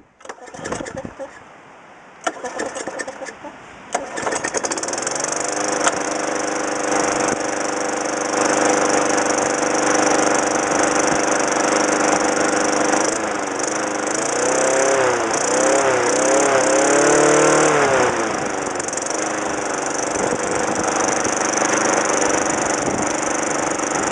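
Craftsman push mower's 2003 5.5 hp Tecumseh single-cylinder four-stroke engine pull-started, with a couple of short rope pulls before it catches about four seconds in and runs steadily. In the middle its speed wavers up and down for a few seconds before settling again.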